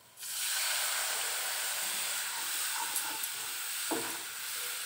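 Hot oil-fried masala in a kadhai sizzling with a steady hiss as bottle gourd water is poured in, starting suddenly just after the start. A single knock about four seconds in, from the wooden spatula stirring.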